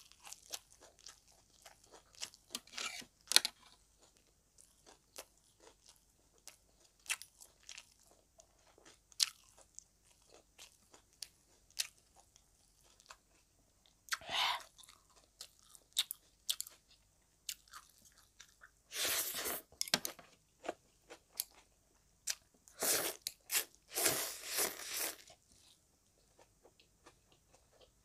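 Chewing and crunching of crisp fish-sauce fried frog, with many short sharp clicks. In the second half come several longer, noisier slurps as mixed instant noodles are sucked in.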